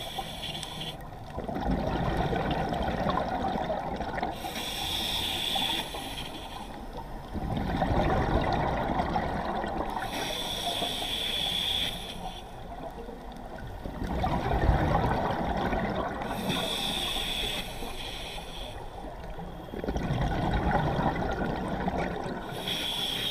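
Scuba diver breathing through a regulator: a bubbly gurgle of exhaled air lasting a couple of seconds, then the shorter hiss of the next inhale, repeating about every six seconds, four breaths in all.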